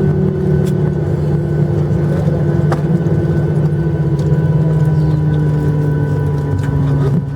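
Cabin noise of a Boeing 737-800 with its CFM56-7B engines running at idle after landing: a steady low hum with a tone that slowly falls in pitch.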